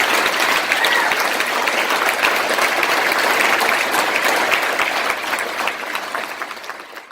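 Audience applauding, a dense steady clapping that eases off near the end and then cuts off abruptly.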